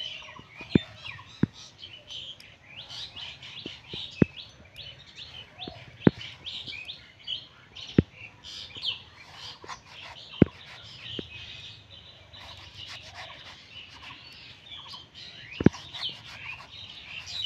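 Raw green brinjals being sliced against a boti's fixed curved blade, each cut a sharp crisp click, coming irregularly every second or few. Birds chirp constantly behind.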